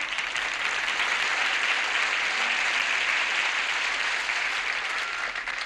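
Studio audience applauding steadily between sketches.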